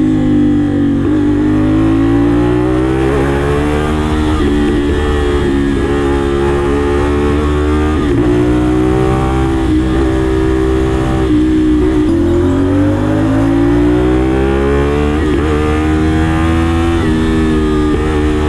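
CFMoto 450SR's parallel-twin engine running hard on the move, heard from the rider's seat. Its pitch climbs and falls back several times as the bike speeds up.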